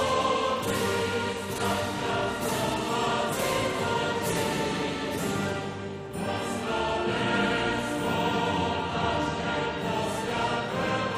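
Background music: choir-like voices over a steady beat of about one strike a second, dipping briefly about six seconds in.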